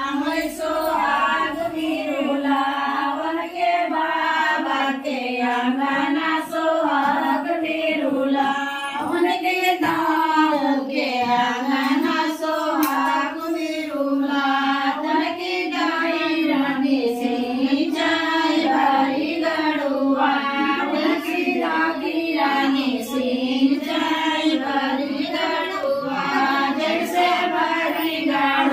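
Female voices singing a slow, wavering melody without pause, the voice carrying the sound with no instrument standing out.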